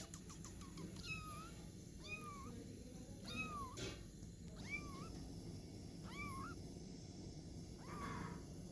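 Young kitten mewing: about six short, high-pitched mews, each rising and then falling, one every second or so.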